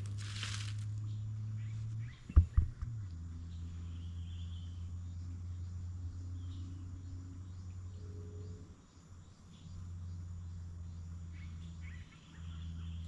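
Outdoor rural ambience: a steady low hum with faint bird chirps above it. There is a brief rush of noise in the first second, and a few sharp knocks about two and a half seconds in.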